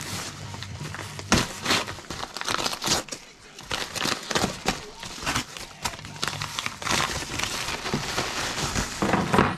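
Packaging being crinkled and torn open by hand: a string of irregular rustles and crackles.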